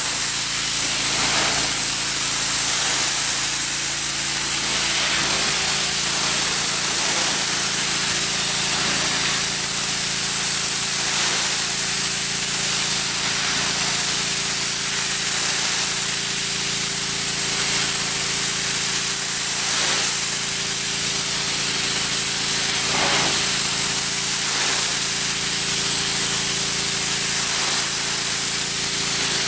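Pressure washer spraying a wooden deck: a loud, steady hiss of the water jet over the constant hum of the machine.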